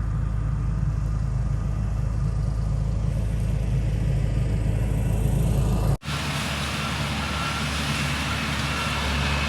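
An engine running steadily with a low rumble, cut off abruptly about six seconds in and replaced by a different steady engine sound with more hiss and a faint high whine.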